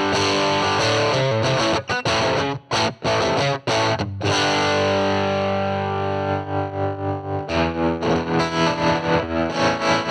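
Electric guitar through a Princeton 5F2 amp model with a Bender Fuzz, played in short, choppy fuzzy phrases. About six seconds in a bias tremolo comes on, and the held chords pulse evenly about four times a second.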